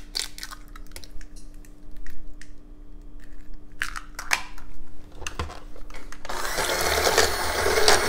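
A few light clicks and taps as an egg is cracked into a stainless steel mixing bowl. About six seconds in, an electric hand mixer switches on and runs steadily, beating the egg into creamed butter and sugar.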